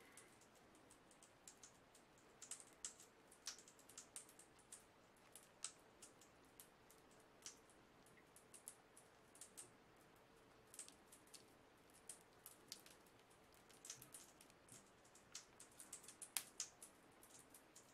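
A large bath bomb fizzing as it dissolves in bathwater: faint, irregular crackling and ticking of bursting bubbles.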